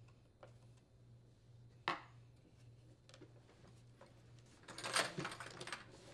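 Plastic leaf blower parts and tools being handled during reassembly: a sharp click about two seconds in, then a short burst of clattering and rustling near the end.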